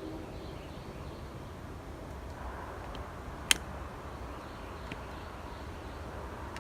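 A distant train horn ends just as it begins, leaving a steady low rumble from the passing train with a few faint bird chirps over it. A single sharp click stands out about three and a half seconds in.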